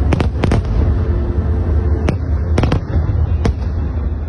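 Aerial fireworks shells bursting in quick succession, sharp bangs over a continuous low rumble. There is a cluster of bangs at the start, more about two seconds in, and a last one about three and a half seconds in.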